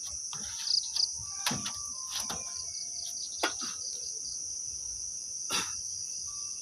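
Crickets and other night insects trilling steadily and high-pitched, with a few short sharp knocks and rustles scattered through.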